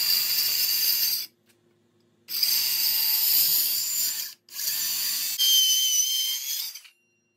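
Power saw cutting through a hardwood board, in three spells of one to two and a half seconds with short breaks between. A steady high whine joins in during the last spell.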